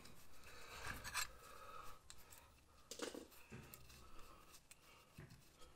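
Faint rubbing and light clicks of gloved hands and pliers working a bolt against metal, the clearest click about three seconds in.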